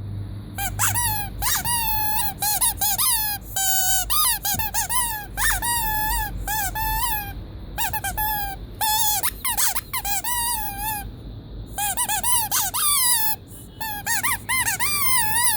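Squeeze-toy squeaks from rubber toys squeezed again and again in quick, irregular runs, each squeak a short, wavering, high-pitched toot, with a few brief pauses between runs.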